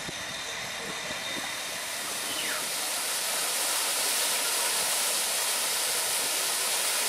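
Water from an ornamental fountain splashing and cascading down a stone wall: a steady rushing hiss that grows louder about two seconds in.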